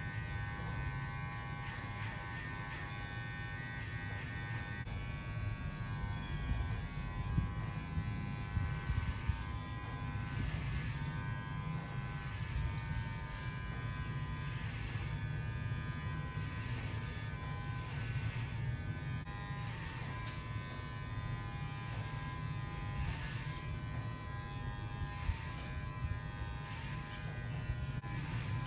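Electric hair clipper running steadily with its buzzing hum, with short strokes every second or two as the blade is worked through hair.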